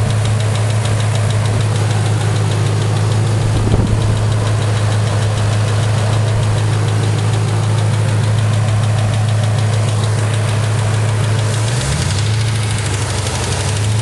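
2004 Pontiac GTO's LS1 V8 idling with a rapid, regular ticking from the valvetrain, which the owner suspects is a collapsed lifter or a bent pushrod. The engine note changes near the end.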